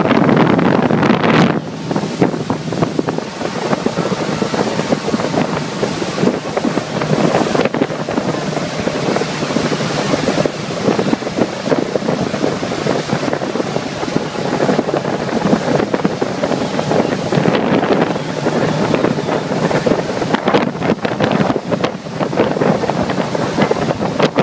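Speedboat running out on the water, with wind buffeting the microphone and water rushing past the hull.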